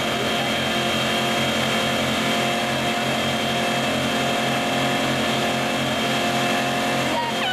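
Chevrolet Camaro doing a burnout: the engine is held at high revs with the rear tyres spinning and squealing on the pavement. The pitch stays steady, with a regular pulsing underneath, then the revs drop near the end.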